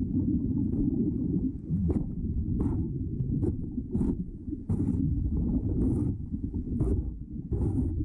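Diver's hand scraper scraping marine growth off a timber boat hull, heard underwater: short scraping strokes roughly once a second over a steady muffled rumble of water.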